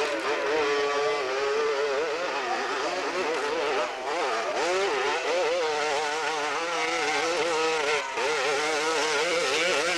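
Dirt-bike engine revving hard under load on a steep hill climb, its pitch wobbling up and down rapidly as the throttle is worked and the rear wheel grips and spins. It drops briefly twice, about four and eight seconds in.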